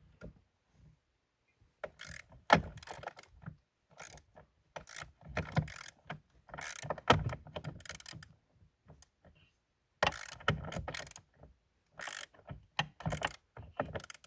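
Hand ratchet wrench clicking in short bursts with brief pauses, backing out 10 mm bolts.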